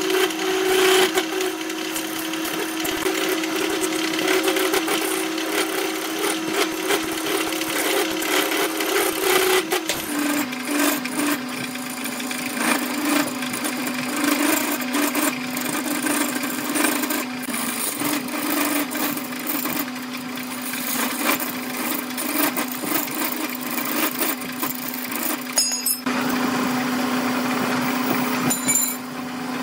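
Wood lathe running with a steady motor hum while a hand-held gouge cuts a spinning epoxy resin and bamboo blank, the rough scraping noise of the cut over the hum. The hum steps down in pitch about ten seconds in.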